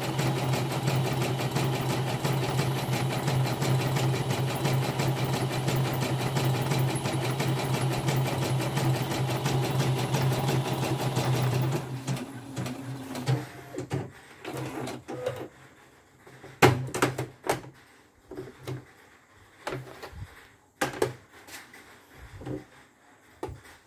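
Elnoss portable embroidery machine stitching a design at a fast, even rate over a steady motor hum, which stops abruptly about halfway through. Afterwards come scattered clicks and knocks as the machine's embroidery hoop is handled and taken off.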